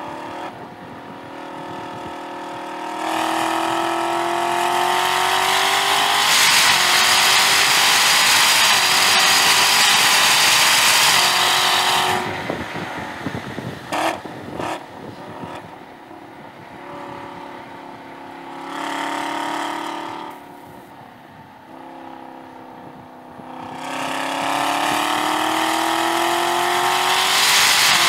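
Chevrolet Camaro ZL1 1LE's supercharged 6.2 L V8 heard from inside the car, pulling hard under full throttle with its pitch rising for several seconds. Around halfway it drops off to a quieter stretch with one brief swell, then pulls hard again with a rising note near the end.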